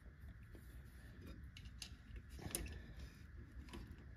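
Faint metallic clicks and scrapes of needle-nose pliers working against a drum brake spring while it is being hooked into place under tension.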